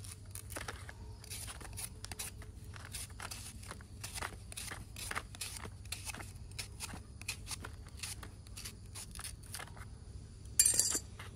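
Handling noises from hands-on work: a run of irregular light clicks and scrapes, then a louder rasping sound lasting about half a second near the end.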